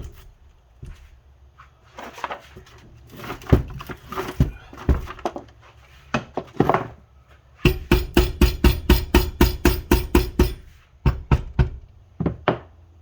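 Sharp knocks on a Honda Civic manual transmission case as it is tapped down into place over its dowels: scattered single knocks, then a quick run of about a dozen strikes past the middle, each with the same short ringing note.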